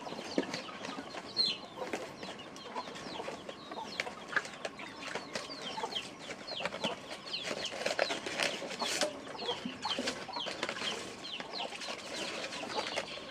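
Chickens clucking and chirping, with many short high chirps that fall in pitch several times a second, and a few sharp clicks among them.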